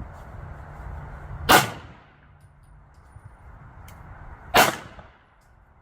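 Two shots from a Taurus G3C compact 9mm pistol, about three seconds apart, each a sharp crack with a short echo off the range.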